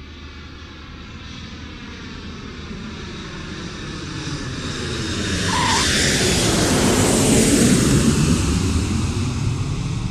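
Airplane flying past, its engine noise swelling steadily to a peak about three quarters of the way through and then starting to fade.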